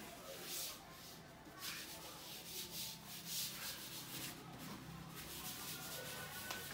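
Wet wipe or cloth rubbed back and forth over a furniture panel, repeated wiping strokes at about one to two a second.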